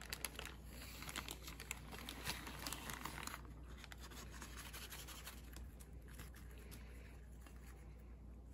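Faint crinkling and rustling of a plastic zipper bag as an oil-and-spice marinade is poured into it over steak strips, busiest in the first three seconds or so, then quieter.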